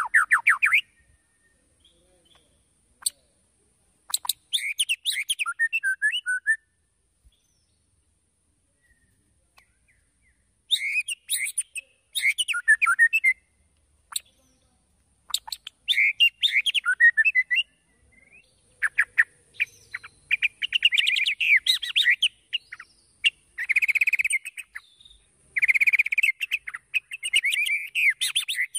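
Male white-rumped shama singing: bursts of rapid, varied whistled phrases separated by pauses, with a long pause about a third of the way in, then near-continuous song through the last third.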